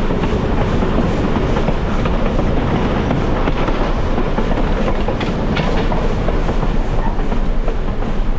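Excursion train running on the rails: a steady rumble and rattle of the cars with frequent clicks of the wheels over the track.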